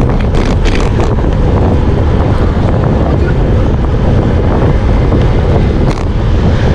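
Steady, loud wind rushing over a handlebar-mounted camera's microphone on a road bike moving at race speed, with a few brief crackles about half a second in and again near the end.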